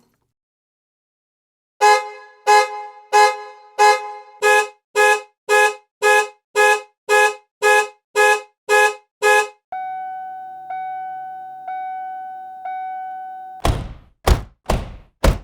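A string of about fourteen short, horn-like beeps, each a chord of several pitches, at a little under two a second. They are followed by a steady single-pitched beep held for about four seconds with a tiny break each second, then a few sharp knocks near the end.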